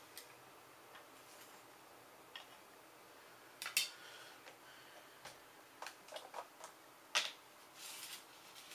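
Faint scattered clicks and scrapes of tiny surface-mount components being scraped off a circuit board and pushed about on a granite tile, with two sharper clicks about four and seven seconds in. A short scratchy rattle of the loose parts near the end.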